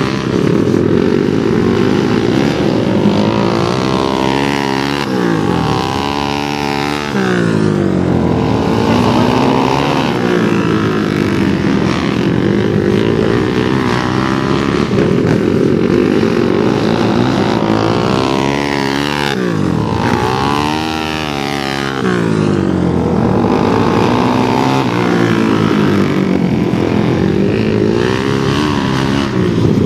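Several flat-track racing motorcycles' engines revving as the pack laps a short dirt oval, with engine pitch repeatedly rising and falling and the bikes overlapping one another.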